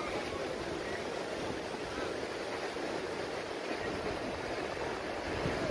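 Shallow sea surf washing in over a beach, a steady rushing noise.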